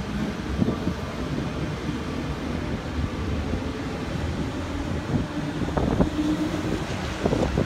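Berlin S-Bahn electric train pulling out along the platform: a steady low rumble of its running gear and motors, with a faint hum and a few sharp clicks near the end.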